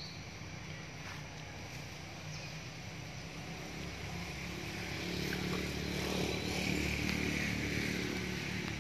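A motor vehicle engine running steadily in the background, getting louder about halfway through and staying loud.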